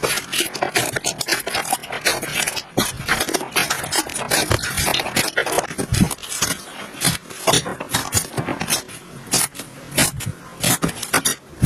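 Slime being squished and worked, a dense, irregular run of sticky clicks and crackling pops.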